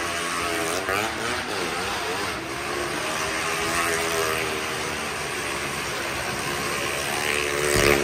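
Car and motorcycle engines running hard as they circle the wall of a well-of-death drum. Their pitch rises and falls over and over as each one sweeps round, and a motorcycle passing close by swells loudest near the end.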